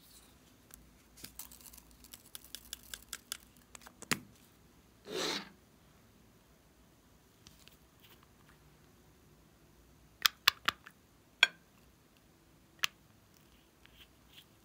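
Small cosmetics being handled: a run of light plastic clicks, a short rasp about five seconds in, then a few sharp clicks of a glass nail polish bottle and its cap being opened, the loudest near the end.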